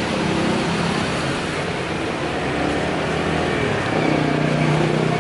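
Street traffic with a motor vehicle's engine running close by, a low hum that grows a little louder about four seconds in.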